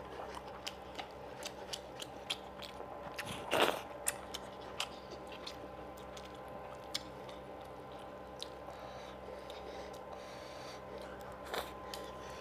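Close-miked eating sounds of fish curry and rice: wet chewing and lip smacks, many short clicks coming quickly in the first few seconds and then thinning out, with a louder smack about three and a half seconds in. A faint steady hum runs underneath.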